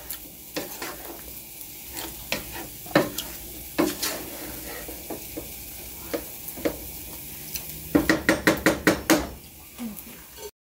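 Wooden spoon stirring fried rice in a nonstick pan: soft scrapes and scattered clicks against the pan, then a quick run of about eight strokes near the end. The sound cuts off suddenly just before the end.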